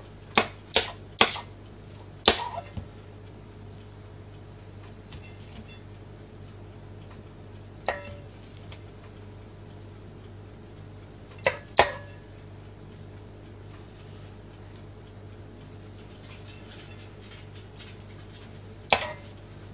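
Utensil clinking and tapping against a stainless steel mixing bowl while meat filling is scooped out. There are three quick clinks at the start, then single clinks and a pair spread out, some with a short metallic ring, over a steady low hum.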